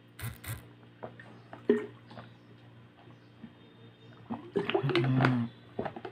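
A person drinking water from a plastic bottle: small wet swallowing sounds and a couple of short clicks, then a short voiced sound from the drinker about four and a half seconds in.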